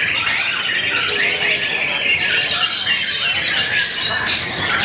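White-rumped shamas (murai batu) singing at a songbird contest, a dense, unbroken chorus of many overlapping whistled phrases.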